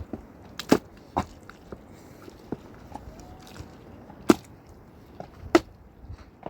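Building work: scattered sharp knocks and taps at irregular spacing, four of them loud, over a faint background.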